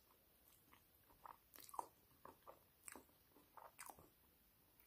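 Faint crunching and chewing as a person bites into and chews a round crispbread topped with alfalfa sprouts: a scattered run of short, quiet crunches.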